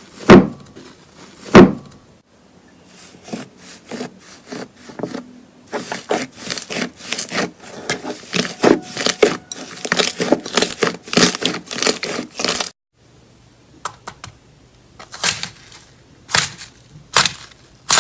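Slime being handled close to the microphone: sharp pops and crackles. Two loud pops come near the start, then a dense run of crackling stops abruptly about two-thirds of the way through, followed by a few more pops.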